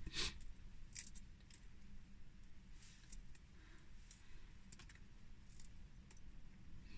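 Faint scattered clicks and taps, the first a little louder, over a steady low rumble.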